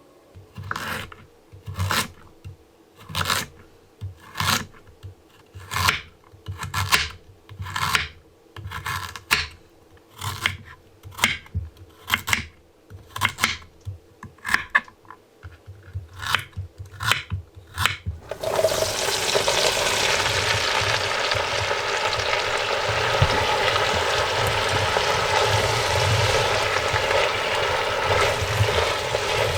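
A kitchen knife chopping onions on a cutting board, about one stroke a second; a little past halfway this gives way to the steady sizzle of onions and carrots sautéing in a pan.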